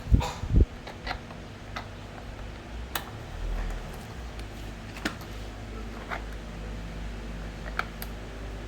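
Light clicks and knocks of fork parts and tools being handled, with two heavier thumps right at the start, over a steady background hum.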